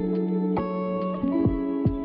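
Background music: sustained plucked guitar notes with light, regular ticking strokes.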